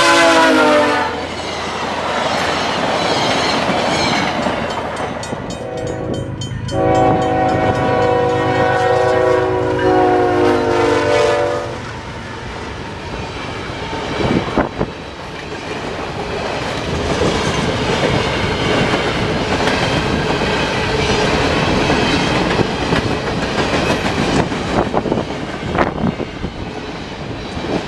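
A VIA Rail F40PH locomotive's horn chord drops in pitch as the passenger train passes at speed, then the train's rumble. A few seconds later a freight train's horn sounds for several seconds with one short break, followed by a long string of covered hopper cars rolling past, wheels clacking over the rail joints.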